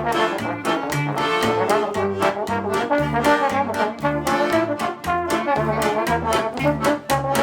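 Recorded band music: a melody line over a steady, even bass beat and frequent drum or cymbal hits, in a brass-led jazz style.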